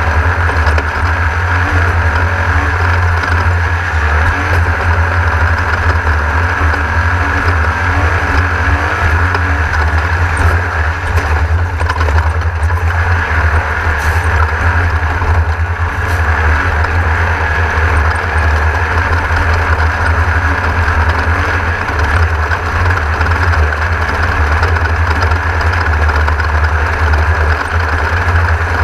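Class 1600 off-road race car's air-cooled four-cylinder VW engine running hard under race load, heard from onboard as a loud, steady low rumble mixed with vehicle noise.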